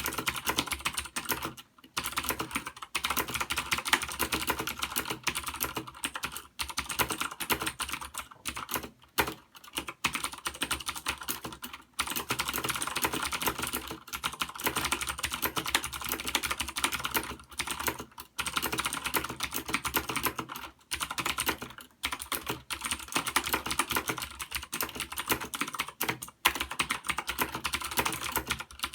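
Fast continuous typing on a Das Keyboard Ultimate mechanical keyboard with Cherry MX Blue switches, a dense stream of sharp clicky keystrokes, broken by a few short pauses.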